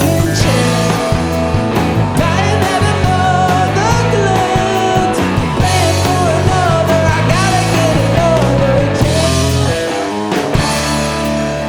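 Rock band playing a jam: guitar with a wavering melodic line over bass and drums.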